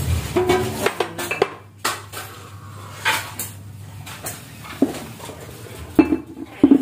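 Kitchen clatter: dishes, containers and utensils knocked and set down on a counter, with a couple of louder clanks near the end.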